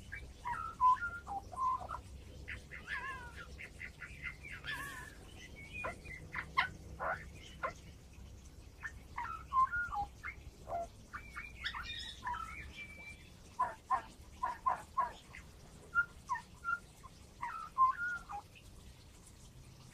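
Australian magpie singing a long run of mimicked calls: short whistles, chirps and warbled notes imitating other birds, coming in quick bursts.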